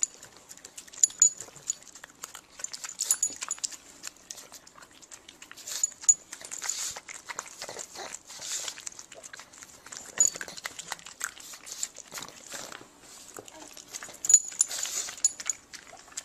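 A pug making short dog sounds close up, mixed with repeated light clinks that fit its metal collar tags jingling as it jumps about.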